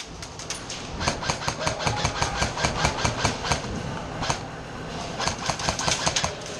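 Airsoft guns firing in rapid bursts of sharp clicks, about five a second, over a steady low hum: a long burst from about a second in, a single shot, then another burst near the end.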